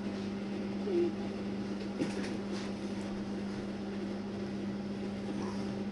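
A running appliance's steady low hum, one constant tone with a faint hiss over it, and a soft click about two seconds in.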